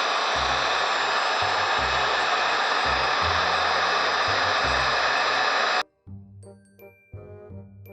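Hot-air heat gun blowing steadily, cutting off abruptly about six seconds in, over background music with a bouncing bass line.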